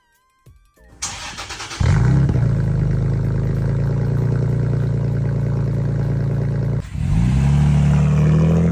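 Toyota Tacoma with a newly installed Carven aftermarket exhaust starting up. The starter cranks for under a second, then the engine catches about two seconds in and settles into a loud, steady idle. Near the end it drops out briefly, then the engine note climbs as it is revved.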